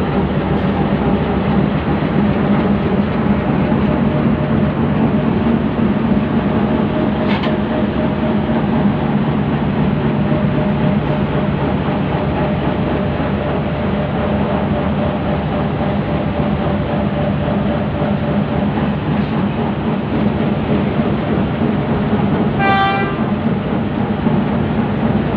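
Diesel engine of a standing HBU-20 diesel-electric locomotive idling with a steady low hum. There is a single click about a third of the way in, and a brief higher-pitched tone sounds near the end.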